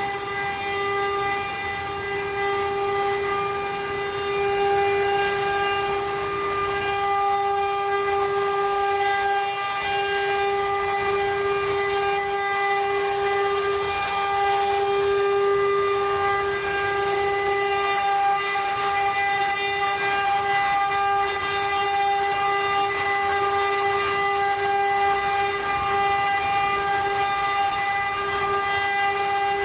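CNC wood-carving router spindle motors running with a steady high-pitched whine, with a strong series of overtones over a constant hiss.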